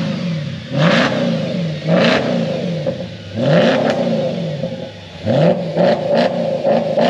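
Audi S5's 4.2-litre V8 being revved through its part-removed exhaust, with half of the old system taken off. Several long rev blips rise and fall, then quicker short blips come in the last couple of seconds.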